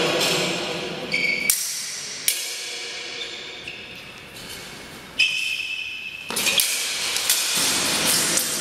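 Steel swords clashing in sparring: a couple of sharp clangs in the first two seconds, a pause, then a quick flurry of clashes about five seconds in. Each strike rings on in a high metallic tone.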